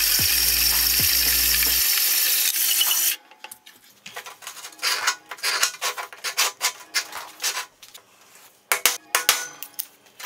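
Metal-cutting band saw sawing through a flat steel bar, a loud steady hiss that stops about three seconds in. After that, a small steel bar scrapes and clicks on a steel workbench top as it is handled.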